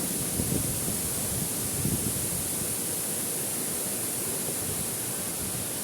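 Waterfall pouring steadily, an even rush of falling water.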